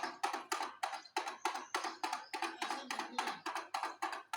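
A small hand drum beaten in a fast, even rhythm, about five strokes a second, keeping time for a dancing monkey.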